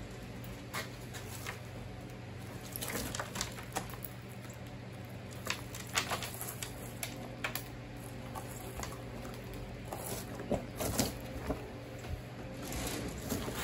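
Latex rubber mold being peeled off a cast statue, with irregular soft crackles and sticky tearing-away sounds coming in clusters. A steady low hum runs underneath.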